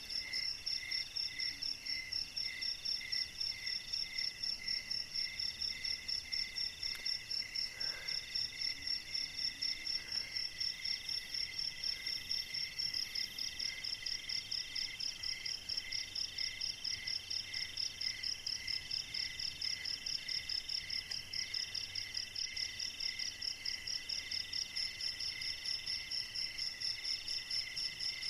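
Night insect chorus, crickets among them: several steady high-pitched trills overlapping, each pulsing a few times a second.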